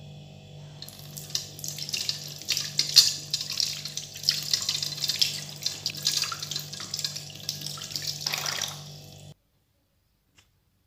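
Water running from a sink tap and splashing over an apple held in the stream, with an uneven splatter. It cuts off suddenly near the end.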